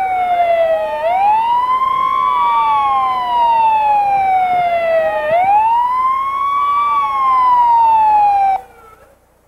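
Emergency vehicle siren wailing as it approaches, each cycle rising quickly and then falling slowly over about three seconds. It stops suddenly near the end.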